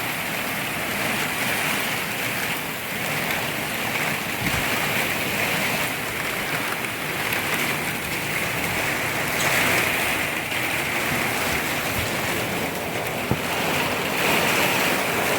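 Heavy thunderstorm rain coming down hard, a steady hiss that swells and eases.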